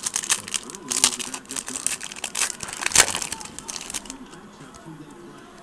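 Plastic-foil wrapper of a trading card pack crinkling as it is handled and opened: a dense run of crackles, sharpest about three seconds in, that dies down after about four seconds.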